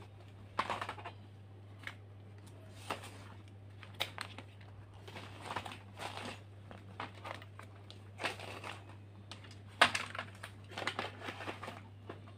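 Rustling and crinkling as things are handled, in irregular bursts, with one sharp knock about ten seconds in, over a steady low hum.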